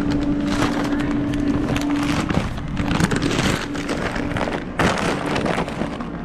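Fast-food restaurant ambience: a steady rushing noise of kitchen equipment under a constant low hum, with a few knocks of handling as the camera is carried.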